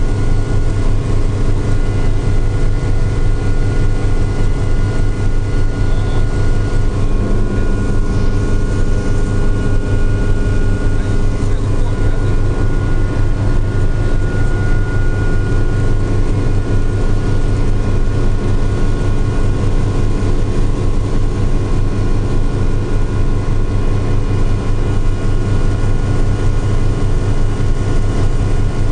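Helicopter in steady flight, heard from on board: a loud, unbroken rotor and engine drone with a fast low throb and a few steady whining tones above it.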